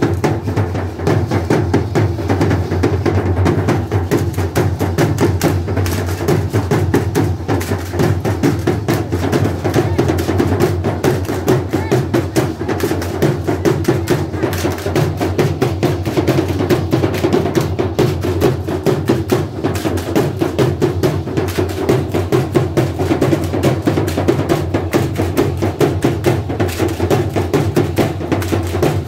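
Matachines dance music: a drum beating a steady rhythm, with dense rapid clacking from the dancers.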